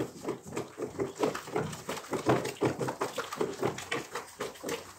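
A utensil stirring a runny mix of yogurt, egg, oil and water in a plastic bowl: quick sloshing, tapping strokes, about four a second.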